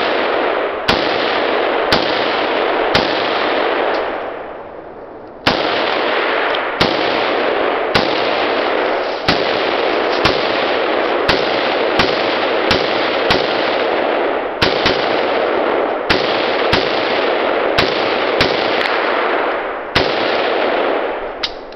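Semi-automatic rifle fired shot by shot at a steady pace, about one shot a second, some twenty rounds in all, with a short break about four seconds in.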